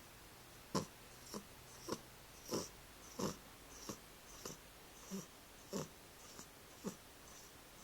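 An 11-month-old cat snoring in her sleep: short wheezy snores in a quick even series, about one and a half a second, starting just under a second in.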